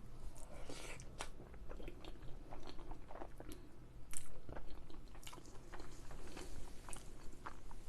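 Close-miked eating: a person biting and chewing food, with irregular wet mouth clicks and a few crunches, the loudest about four seconds in.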